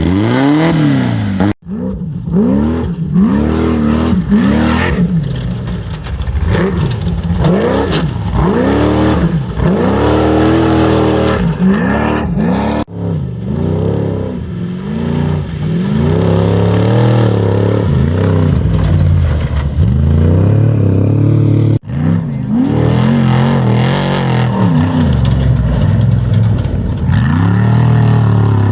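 Off-road race vehicle engines at full throttle, their pitch rising and falling again and again. The sound breaks off abruptly three times.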